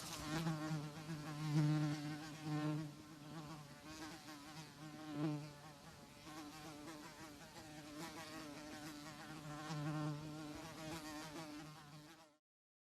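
Flies buzzing: a low, wavering drone that swells and fades in loudness, then cuts off abruptly shortly before the end.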